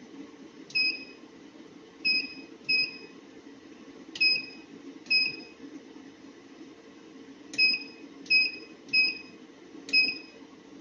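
Keypad of a hot-knife rope cutting machine's control panel beeping as its buttons are pressed to set values. There are nine short, high beeps at uneven intervals, each opening with a click, over a steady low hum.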